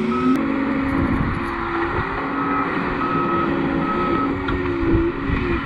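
John Deere compact track loader's diesel engine running steadily as it works the dirt, its pitch shifting with load, with the backup alarm beeping once at the start and three times a little past midway.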